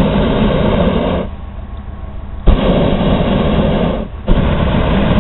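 Hot air balloon propane burner firing in loud blasts: the first blast cuts off about a second in, a second starts about a second later, and after a brief break near the four-second mark it fires again. The burner is heating the air in the envelope.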